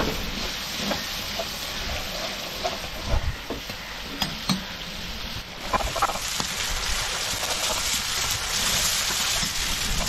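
Food sizzling and frying in a hot pan while it is stirred, with scattered light clicks and scrapes of the stirring spoon against the pan. The sizzle gets louder about halfway through.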